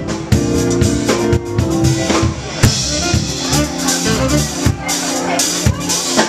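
Live band playing, with a drum kit keeping a steady beat on bass drum and snare under sustained pitched instruments.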